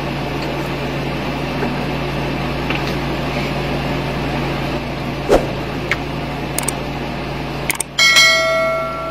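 Steady electrical hum in the room with a faint click about five seconds in. Near the end a quick click is followed by a bright bell-like ding that rings for about a second: the sound effect of an on-screen subscribe-button animation.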